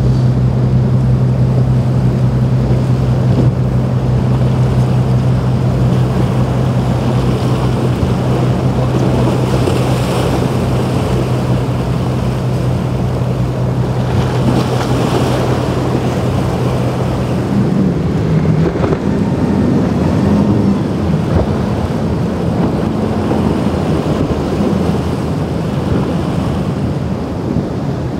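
Motorboat engine running at speed with a steady drone, over wind buffeting the microphone and the rush of waves and spray. About two-thirds of the way through, the engine note steps higher and wavers.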